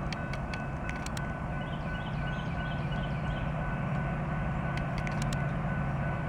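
Approaching diesel freight locomotives working at full throttle: a steady low engine rumble with a thin high whine, slowly growing louder as the train nears.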